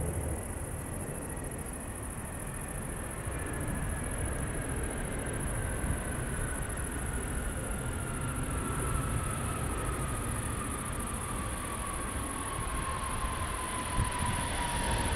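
Boeing 777-200ER's jet engines rumbling as the airliner rolls out along the runway after landing, with an engine whine falling slowly in pitch. A brief knock sounds near the end.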